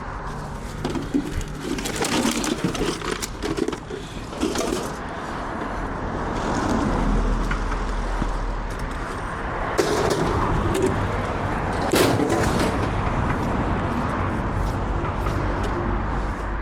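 A pigeon cooing, with scattered knocks and clatter.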